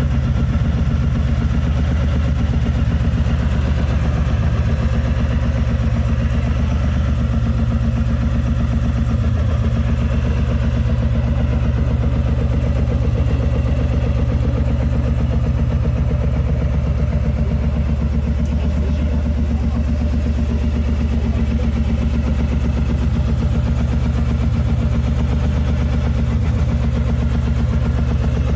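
Harley-Davidson air-cooled V-twin engine idling steadily through an aftermarket two-into-one exhaust, a continuous low pulsing with no revving.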